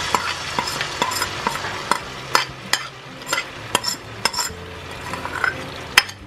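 Sauce sizzling as it is poured into a hot frying pan of onions, while a metal spoon scrapes and clinks against the bowl to get the last of it out. The clinks come at irregular moments over a hiss that fades as the sauce settles.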